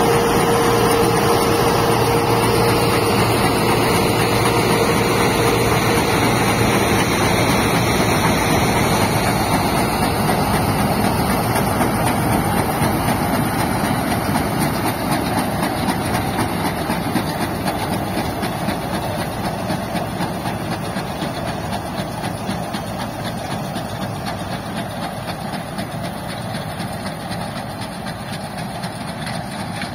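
100 hp Caiman tractor's diesel engine running steadily as it pulls a New Holland 648 round baler, with the baler's machinery running too. The sound fades gradually as the rig moves away.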